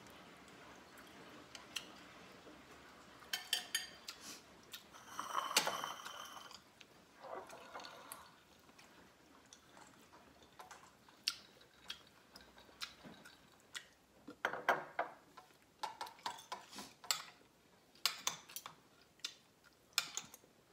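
Eating at a table: a fork clinking and scraping on ceramic plates in short sharp clicks scattered throughout, with wet chewing and mouth sounds in between.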